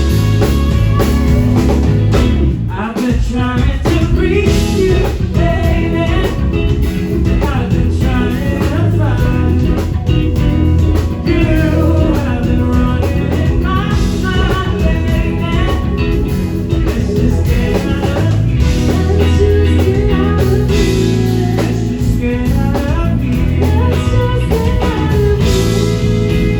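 Live rock band playing, with electric guitar carrying a bending melodic line over bass and drums, and some singing.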